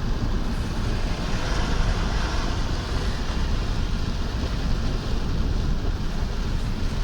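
Steady road noise inside a car driving through heavy rain: low rumble with tyres hissing on the wet road. The hiss swells briefly about two seconds in.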